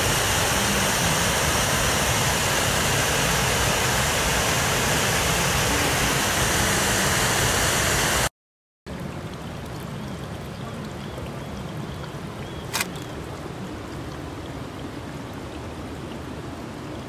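Small waterfall pouring over a rock ledge, a loud steady rush of water. About eight seconds in the sound cuts out for half a second and comes back as a quieter run of water over mossy rocks, with a single sharp click midway through.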